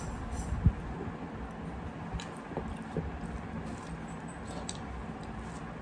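Close-up chewing of a handful of rice and curry eaten by hand, with wet, squishy mouth sounds and a few short clicks, the sharpest about a second in.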